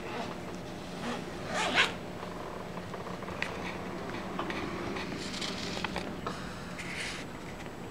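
A zipper on a black bag being pulled: a short, loud rasp a little under two seconds in, then longer, fainter rasping pulls later on.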